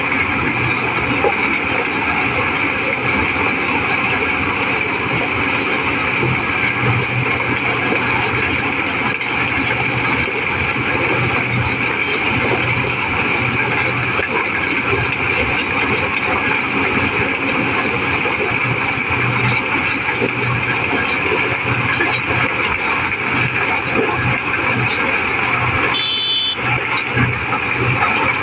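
Mobile corn sheller running steadily under load, its engine and threshing drum going as whole unhusked cobs are fed through and shelled kernels stream out of the chutes. The sound breaks off for a moment near the end.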